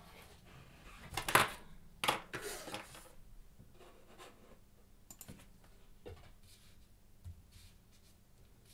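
Handling noises on a desk: two loud scraping rustles about a second and two seconds in, then scattered faint clicks and taps.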